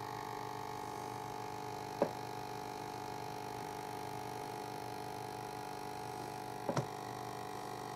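Steady hum with several held tones, broken by one short click about two seconds in and a quick double click near the end.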